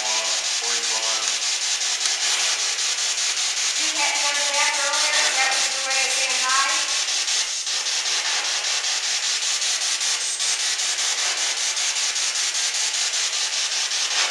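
P-SB7 spirit box sweeping through radio stations: a steady hiss of static chopped into rapid, even pulses. Brief snatches of pitched radio sound break through about a second in and again from about four to seven seconds in.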